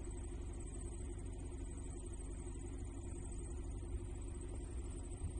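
Open-paddock ambience: wind rumbling and buffeting on the microphone, gustier near the end, over a steady high, fast-pulsing hiss.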